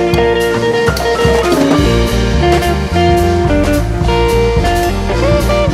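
Background music: a guitar tune of held notes over a steady beat.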